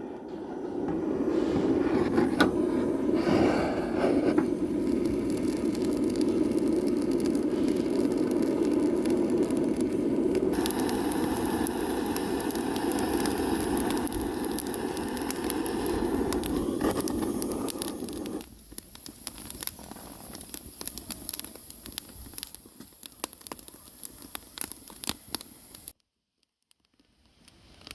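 A gas torch flame hisses steadily into the firewood, then cuts off about two-thirds of the way through. After that, the catching wood fire crackles and pops with scattered sharp snaps.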